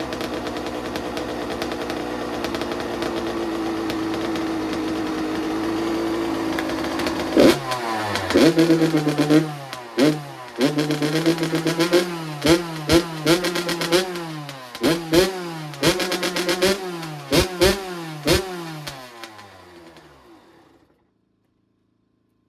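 Kawasaki KX85 two-stroke single running at a high idle on its freshly rebuilt top end, then revved in a long string of sharp throttle blips, each falling back, before it dies away and stops near the end.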